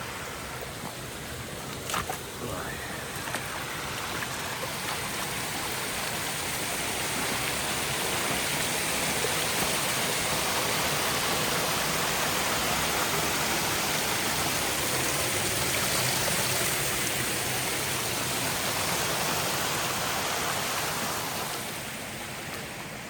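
Rushing water of a flooded, overflowing river: a steady rush that grows louder over the first several seconds and eases off near the end.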